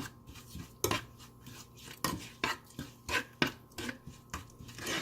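Kitchen utensils clinking and knocking against a cooking pot and dishes: about ten sharp, irregular clinks.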